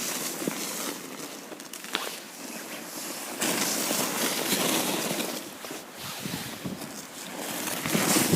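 Footsteps in snow, with a louder stretch of noise lasting about two and a half seconds, starting about three and a half seconds in.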